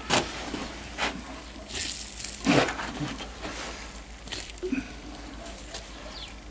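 A few short wet rips and rustles as a layer of pork belly meat and fat is pulled by hand off a pig carcass, the loudest about two and a half seconds in, over a steady low hum.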